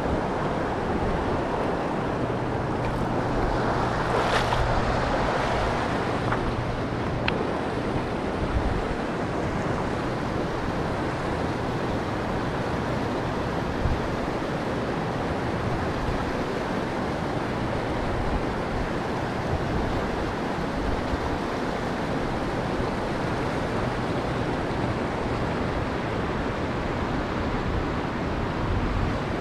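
Fast river water rushing over a rocky riffle: a steady wash of noise, swelling briefly louder about four seconds in.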